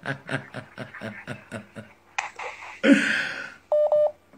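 A woman laughing in quick, even pulses that trail off over about two seconds. A short rush of noise follows about three seconds in, then two quick electronic beeps from a phone near the end.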